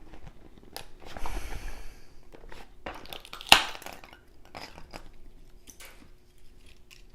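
A finished plastic 3D print being pried and scraped off the cooled bed of a Creality Ender 3 printer: scattered scraping, crunching and clicks, with one loud sharp crack about three and a half seconds in as the stuck print gives.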